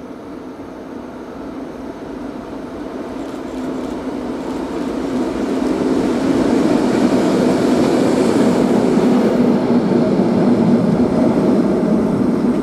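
TEM2 diesel-electric shunting locomotive running light, with no wagons. Its diesel engine drone and the rumble of its wheels on the rails grow steadily louder for about six seconds as it approaches, then stay loud as it passes close by.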